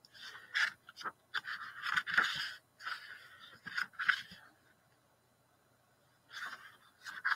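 Pages of a leather-bound book being leafed through, a run of quick paper rustles and scrapes for about four seconds, then a pause and two more page turns near the end.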